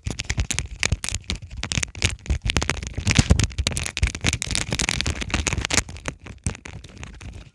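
Rapid, irregular clicking and crackling, many sharp clicks a second with no steady rhythm.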